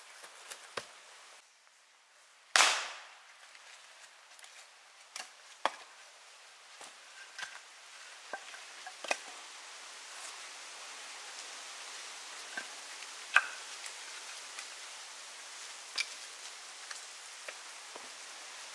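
Short wooden knocks and clacks of cut log pieces being handled and set down, with one loud ringing knock about two and a half seconds in.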